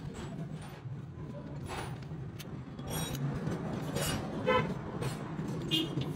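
Motor traffic with a steady low engine hum and a few short horn toots, about three seconds in, at four and a half seconds and again near the end.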